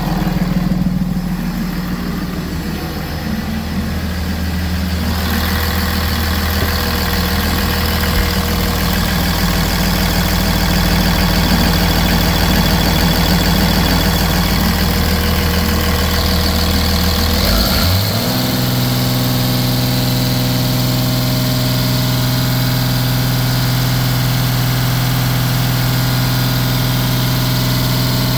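2009 Cummins ISB 6.7 inline-six turbodiesel idling steadily. After about eighteen seconds its speed steps up to a higher steady idle and holds there.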